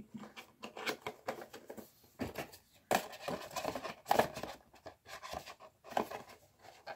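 Quiet handling noise: scattered small clicks, taps and rustles, with a couple of louder knocks about three and four seconds in.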